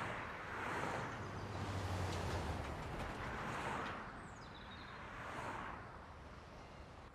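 Cars passing on a road, each one a swell of tyre and engine noise that rises and fades every couple of seconds, with a low engine hum from a heavier vehicle early on. A short, high falling chirp comes about four seconds in.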